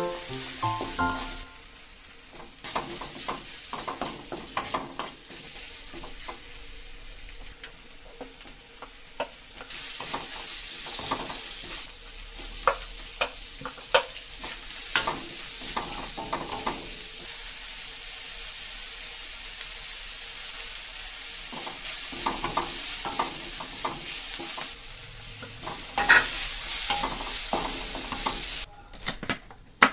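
Shallots, garlic and julienned carrots sizzling in oil in a metal wok, stirred with a spatula that scrapes and knocks against the pan again and again. The sizzle cuts off shortly before the end.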